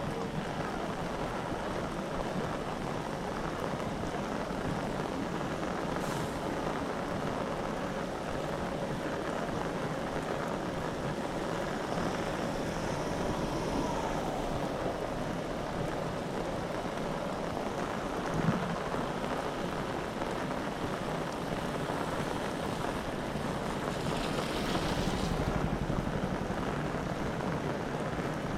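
Heavy rain pouring steadily on a city street, with a brief louder swell near the end.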